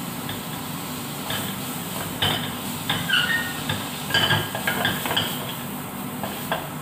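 A utensil clinking and scraping in a frying pan as butter melts in it over a gas burner, with a cluster of knocks and clinks in the middle few seconds over a steady low hiss.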